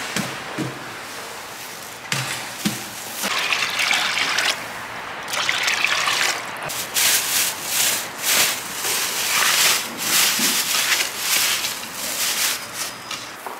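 Fresh cooking oil pouring from a square tin into a deep fryer with a trickling, splashing flow that comes in uneven surges.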